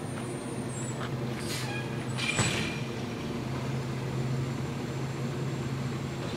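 Garbage truck's engine running steadily, with two short air-brake hisses about one and a half and two and a half seconds in, the second louder.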